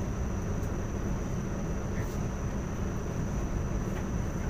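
Steady low rumble of a moving express train heard from inside its air-conditioned chair car coach, with a faint steady high whine above it and a few light ticks.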